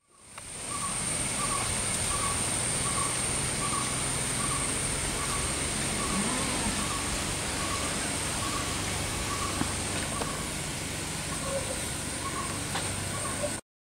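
Outdoor garden ambience: a steady hiss with a thin high tone, and a bird repeating a short call about two or three times a second. The sound fades in at the start and cuts off abruptly near the end.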